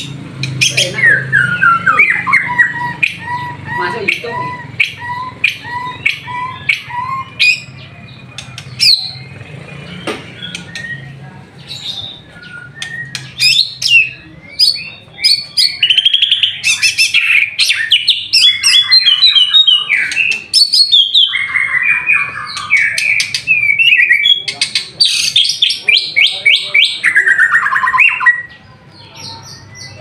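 White-rumped shama singing loudly: sharp chip notes, a run of evenly spaced whistled notes in the first few seconds, then fast, varied trilling phrases through most of the second half.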